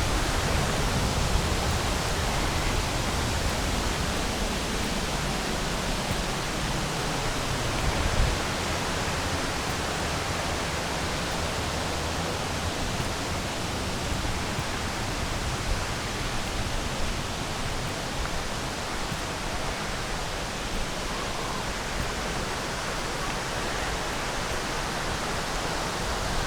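Waterfall rushing steadily: an even wash of falling water.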